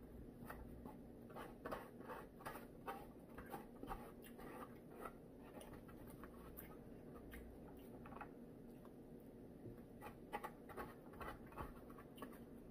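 Faint scraping and clicking of a fork against a takeout container as food is picked up, in busy clusters over the first few seconds and again near the end.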